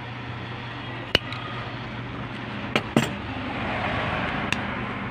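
Background road traffic, with a vehicle passing and swelling to its loudest about four seconds in, over a steady low hum. A few sharp clicks are scattered through it.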